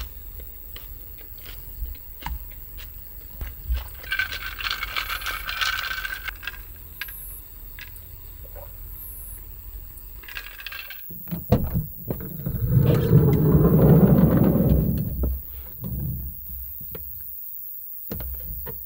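Ice cubes clinking in a glass as it is handled and drunk from, followed past the middle by a louder stretch of rustling and handling noise.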